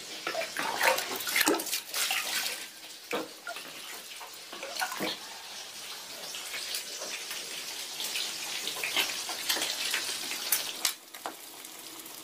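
Chicken pieces deep-frying in hot oil in a frying pan: a steady sizzle with frequent crackles and pops.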